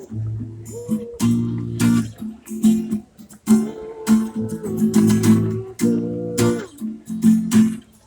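Instrumental passage of a song between sung lines: strummed guitar over a bass line and a steady beat, with a held melody line on top.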